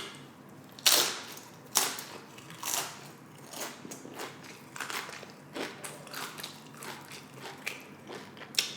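Close-miked crunching of tortilla nacho chips being bitten and chewed: three loud crunches about a second apart, then softer, quicker chewing crunches.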